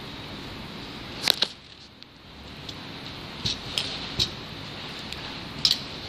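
Sharp little clicks and taps of a hex screwdriver and metal tray parts knocking together during assembly: a quick double click about a second in, a few more in the middle, and one near the end, over a steady background hiss.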